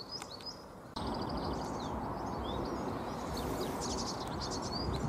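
Small birds singing, a quick high chirp repeated about three times a second at first. About a second in, a louder steady rush of outdoor noise starts abruptly, with more birdsong chirping over it.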